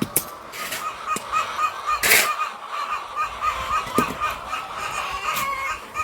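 Poultry calling continuously in a quick, even run of repeated calls, with a few sharp knocks over it, the loudest about two seconds in.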